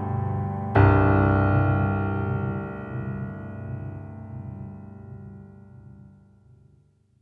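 Closing music on a piano-like keyboard: a final chord struck about a second in that rings and slowly dies away to silence near the end.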